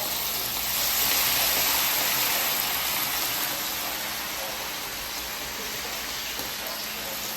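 Chicken pieces frying in hot oil in a pot: a steady sizzling hiss that grows a little louder about a second in.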